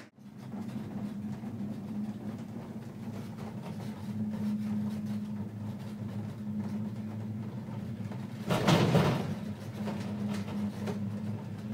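Ride inside a six-person Poma gondola cabin running on its haul rope: a steady low hum with rattle, broken by a brief, louder clattering rush about eight and a half seconds in as the cabin nears the station.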